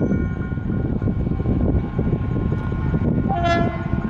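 GM GT22 diesel locomotive rumbling as it rolls in with its passenger train. It gives one short horn blast a little over three seconds in.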